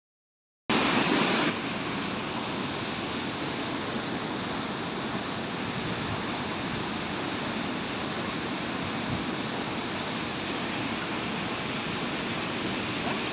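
Steady rush of water pouring through a river dam's opened sluice gates during a pladu flush, an even noise with no distinct events. It cuts in abruptly under a second in.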